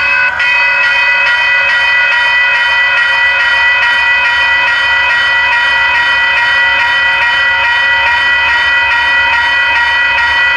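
WCH Type 1 electronic railroad crossing bell ringing rapidly and evenly, warning of an approaching train as the crossing signals activate.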